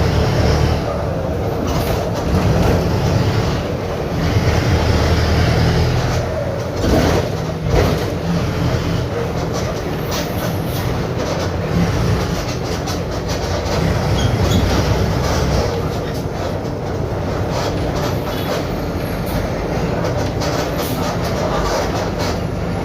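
Mercedes-Benz OF-1721 BlueTec 5 bus's diesel engine running with a steady deep rumble, and scattered rattles and knocks over it. The exhaust has a hole in it.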